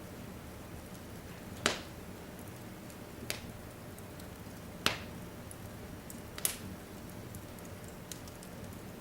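Log fire crackling in a fireplace: a steady hiss with four sharp pops about a second and a half apart and a few fainter ticks between them.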